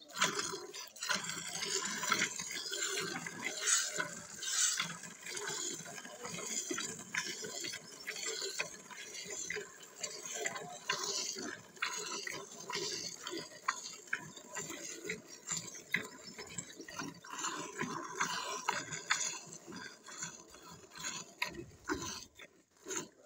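Hand-milking: milk squirting in repeated quick jets into a foamy metal bucket, each squeeze giving a short hissing spurt.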